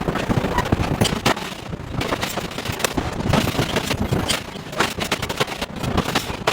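Giant hydraulic forging hammer striking hot steel in rapid, irregular blows, several a second, over a steady low rumble.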